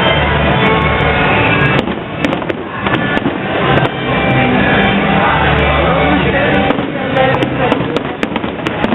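Fireworks popping and crackling in many sharp, irregular reports, with music playing throughout.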